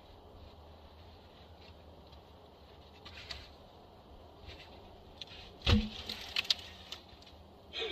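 Cut conifer limbs being handled: a short rustle about three seconds in, then a heavy thump a little past halfway, followed by several sharp snaps and rustles, and one more brief rustle near the end.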